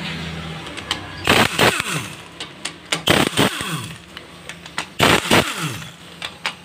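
Handheld power driver spinning clutch-cover bolts out of a Yamaha FZ engine in three short bursts about two seconds apart, its motor winding down in pitch after each.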